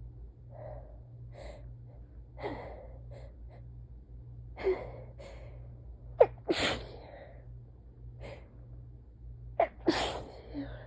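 A person in a sneezing fit: short gasping in-breaths and sniffs, then two sudden sneezes, one about six seconds in and one near the end.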